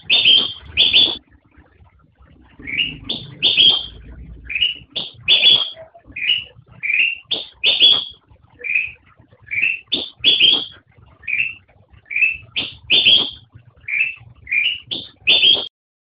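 Kutilang emas bulbul (Pycnonotus melanicterus) singing: a steady run of short, clear whistled notes, about two a second, often a lower note followed by a louder, higher one. The song stops shortly before the end.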